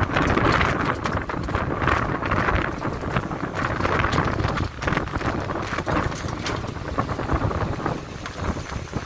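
Wind buffeting the microphone over the steady rush of a muddy river in flood, with a small van rumbling across the wooden bridge deck and scattered knocks.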